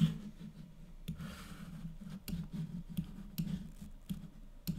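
Irregular scattered clicks, like a computer mouse and keys being worked, with a sharper click at the start and another near the end, over a faint low hum.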